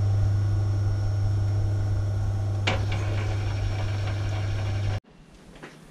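Myford Super 7B lathe running in its slowest back-gear speed, a steady motor hum with gear whine over it. There is a single click a little under halfway, and the sound cuts off suddenly near the end.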